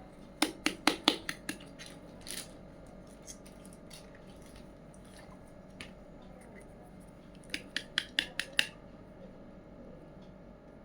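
Small hard items being handled, making two quick runs of about six sharp clicks each, one just after the start and one about eight seconds in, with a softer click between them.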